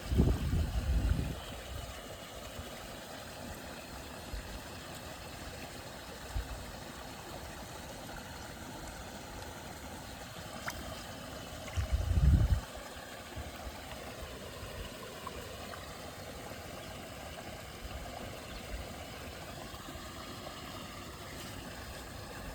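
Steady outdoor hiss of water at the fishing spot. Two short low rumbles of wind buffeting the microphone come in the first second or so and again about halfway through.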